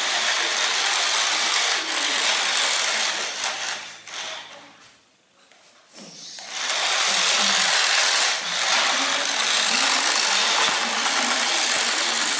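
Toy RC drift cars' small electric motors and gears whirring as their tires skid across a tiled floor. The noise fades to near silence about five seconds in, then picks up again.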